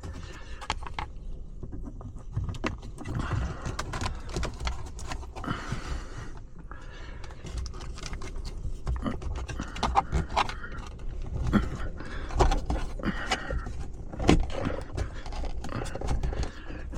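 A cable and plastic interior trim being pushed and tucked into place by hand, giving irregular scrapes, rustles, small clicks and a few dull knocks, with the worker breathing hard from the effort.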